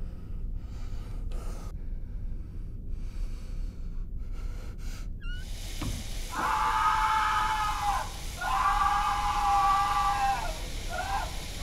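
A shower spray starts hissing about five seconds in. A man then screams in pain from scalding water in long, held cries that break off twice.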